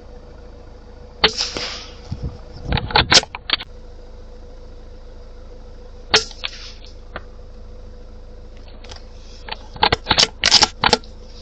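Suppressed .22LR rifle shooting: two sharp cracks about five seconds apart, each with a short tail, and quick clusters of clicks between and after them.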